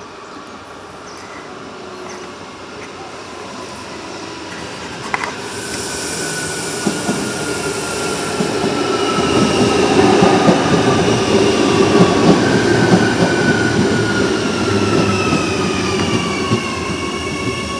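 Adelaide Metro 4000-class electric multiple unit approaching and running along the station platform. Its rumble and wheel-on-rail noise grow louder to a peak about ten to thirteen seconds in, then ease a little. High whining tones slide down in pitch as it passes.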